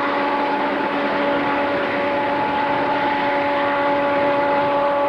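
Diesel freight locomotive passing close under power: a loud, steady engine drone with several held tones over the rumble of the train.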